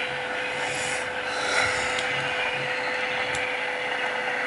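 BNSF intermodal freight train's container cars rolling past at speed: a steady rushing noise of wheels on rails, with a constant single tone above it.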